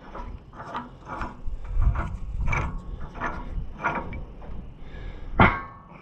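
Threaded tongue adjuster being turned out with a hand wrench: a short metallic scrape with each stroke, about every two-thirds of a second. One sharp metal clank near the end.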